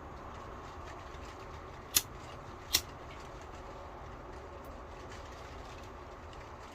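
Two sharp clicks, about three-quarters of a second apart, over a steady low rumble and hiss.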